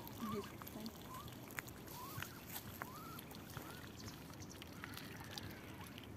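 Mallard ducklings peeping: a string of short, high, rising calls at irregular intervals, over small clicks and splashes of bills dabbling at the water's surface.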